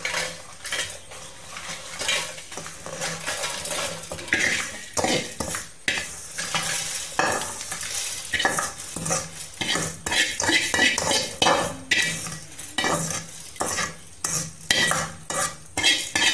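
Fried spices (dried red chillies and coriander and cumin seeds) tipped from a metal pan into a steel mixer jar: dry seeds rattling and crackling against the steel, with irregular clinks and scrapes of metal on metal.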